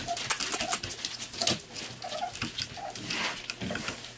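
Seven-week-old puppies whimpering and yipping in short, high cries, about five of them, over sharp clicks and scratching.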